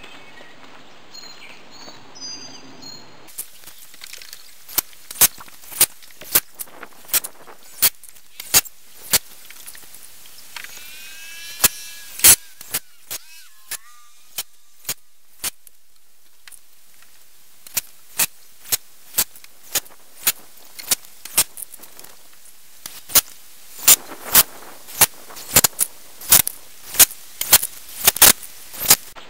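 Hammer driving nails into wooden boards: runs of sharp strikes, about two a second, with a short pause about halfway through.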